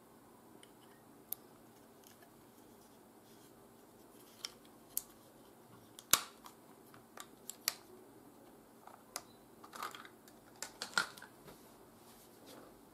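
Sharp plastic clicks and snaps as a Lamax X7.1 Naos action camera is handled and taken out of its waterproof housing. The clicks come irregularly, with the loudest one about six seconds in and a quick cluster about ten to eleven seconds in.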